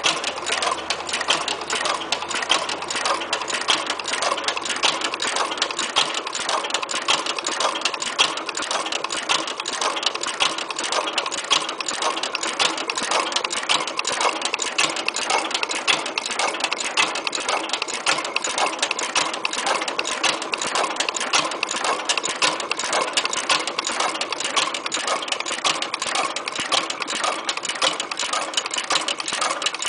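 A 3 hp Harvard Stickney vertical hit-and-miss engine running, with a steady, rapid mechanical clatter of many quick clicks.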